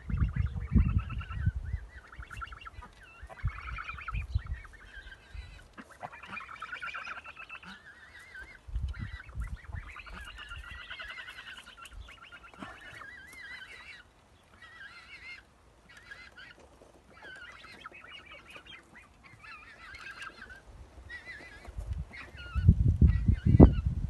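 Geese honking, many calls following and overlapping one another, with loud low rumbles at the start, briefly in the middle and near the end.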